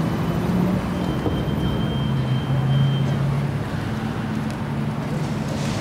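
A Sydney Light Rail tram running slowly and drawing to a stop beside a street-level platform: a steady low running sound mixed with street noise. A thin high whine is held for about two seconds, starting about a second in.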